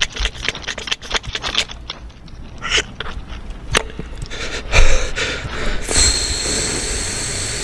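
Mouth-made beatbox sound effects imitating the dalgona candy game: a run of sharp clicks and short scraping strokes, a loud burst about five seconds in, then a steady hiss to the end.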